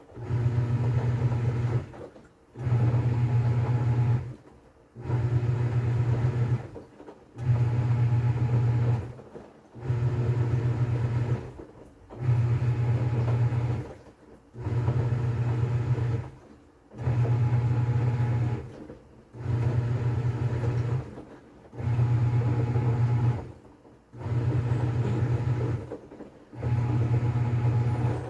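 TCL top-load washing machine agitating during its wash cycle: the motor hums for about two seconds, pauses for about half a second, then starts again, in an even repeating rhythm of about one stroke every two and a half seconds.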